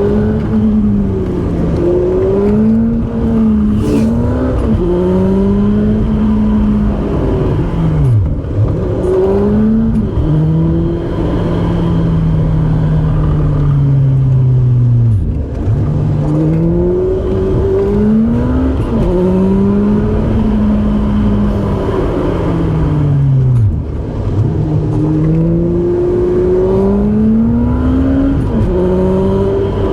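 Car engine being driven hard, its pitch climbing and falling again and again as the car accelerates and slows. It drops sharply twice, about halfway through and again later.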